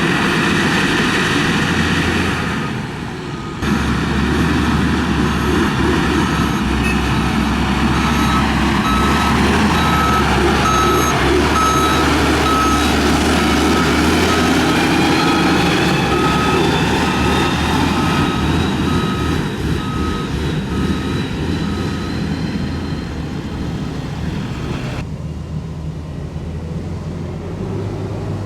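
Diesel engine of a heavy road-building machine running, with a reversing alarm giving a run of evenly spaced beeps through the middle. The sound changes abruptly a few seconds in and again near the end.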